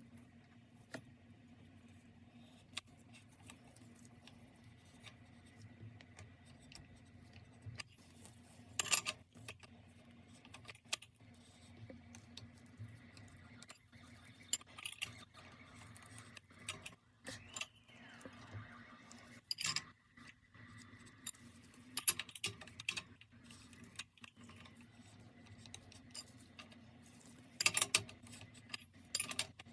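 Metal bicycle tools and parts clinking and rattling during hand work, with scattered sharp clicks and a few louder metallic clanks: about 9 seconds in, twice between 20 and 22 seconds, and near the end.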